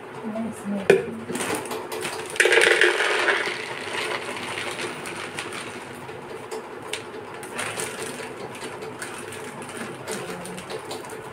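Kitchen handling noise: a few knocks and clinks near the start, a louder clatter lasting about a second a couple of seconds in, then a steady hiss with scattered small clicks as containers are moved on the counter.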